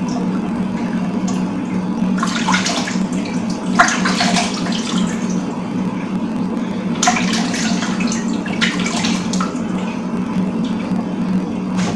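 Water running from a kitchen tap, with splashing and sloshing as something is washed in it, in bouts about two seconds in and again about seven seconds in.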